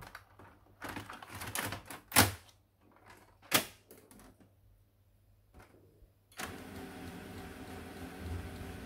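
Clicks and knocks as a toner cartridge is swapped in a Canon LBP251 laser printer. About six seconds in, the printer's mechanism starts and runs steadily with a low hum.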